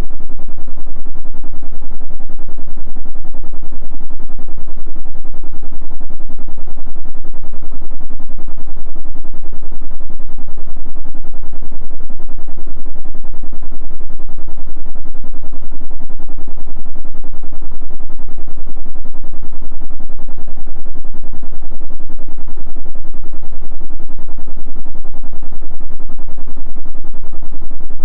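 Electric fan running steadily: a constant low whooshing hum from the spinning blades, with a fast, even pulse.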